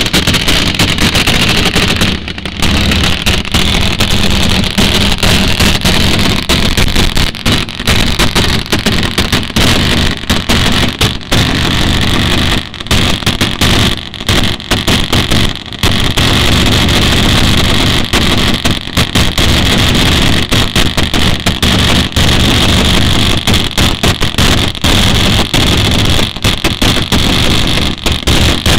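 Dirt drag-racing motorcycle engine running loud and steady, the recording cutting out in brief gaps many times.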